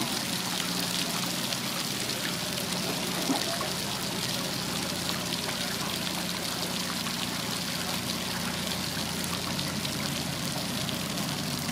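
Many small fish flopping on a concrete quay, making a continuous light patter of tiny slaps, over a faint steady low hum.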